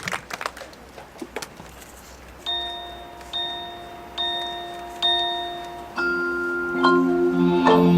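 Marching band front ensemble opening its show: a bell-like mallet-percussion chord struck four times, evenly under a second apart, each ringing out. About six seconds in, a held low chord comes in beneath further struck bell tones.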